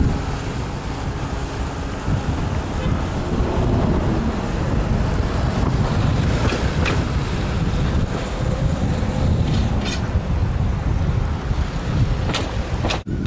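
Heavy wind noise buffeting the microphone, a steady low rumble, with a few short faint clicks; it drops out for a moment near the end.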